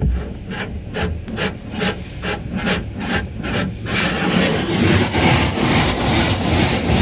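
Automatic car wash water jets hitting the car, heard from inside the cabin: quick rhythmic pulses of spray, about three to four a second. About four seconds in they give way to a steady hiss of water drumming on the body and glass.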